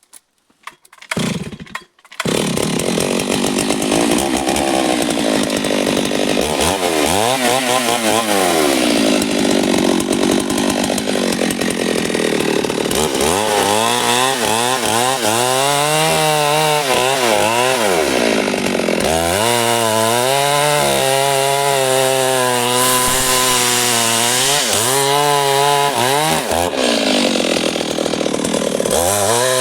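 Stihl MS 382 two-stroke chainsaw starting up about two seconds in, then running loud, its engine revved up and let fall back again and again.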